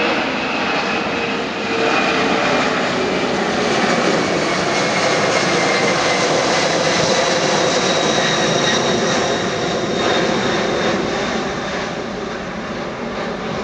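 KLM McDonnell Douglas MD-11 trijet airliner taking off at full thrust: a loud jet roar with a high whine that slowly falls in pitch as it climbs past, easing off near the end.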